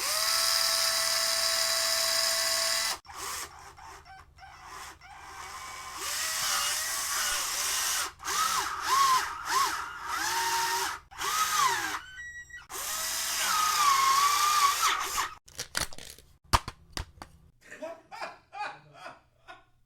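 A string of separate short sound effects one after another. It opens with a steady mechanical whine about three seconds long, followed by several shorter sounds with wavering, gliding pitches and a run of sharp clicks near the end.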